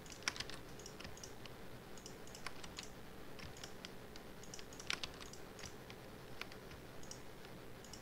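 Faint computer keyboard keystrokes and mouse clicks, tapped irregularly and sparsely, with a couple of slightly sharper clicks.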